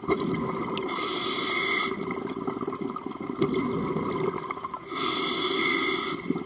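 Scuba diver breathing through a regulator underwater: two inhalations, each a hiss lasting about a second, with bubbling from the exhaled air in between.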